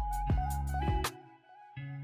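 Background music: a melody over deep bass and a beat. It drops out for a moment about a second in and comes back near the end.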